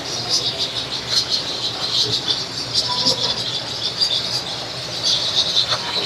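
A flock of small birds chirping and chattering together, many high-pitched calls overlapping continuously.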